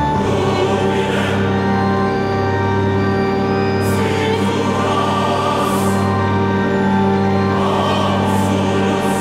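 Background music with sustained choir-like voices over held chords, with swelling cymbal-like washes every couple of seconds.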